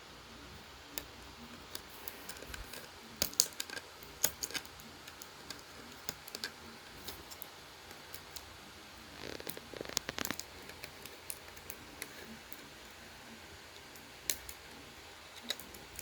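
Scattered small clicks and taps of hands handling and fitting hardware, with a denser flurry of clicking and rubbing about nine to ten seconds in.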